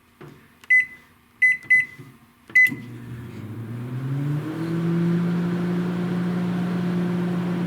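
Panasonic NN-SN67HS inverter microwave: four short keypad beeps as power level 5 is entered and the oven is started, then its running hum, which rises in pitch over about two seconds and then holds steady.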